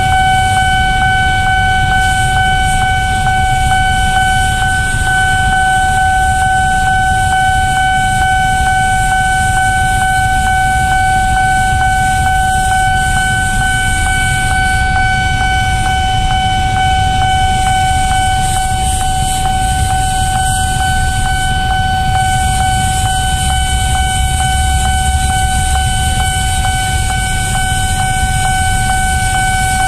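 Freight train of tank and container wagons rumbling past a level crossing. Over the rumble, the crossing's warning signal sounds one steady, unbroken tone.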